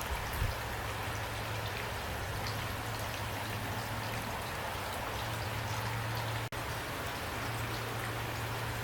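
Steady rain falling, with scattered individual drops ticking over an even hiss and a steady low hum underneath. The sound cuts out for an instant about six and a half seconds in.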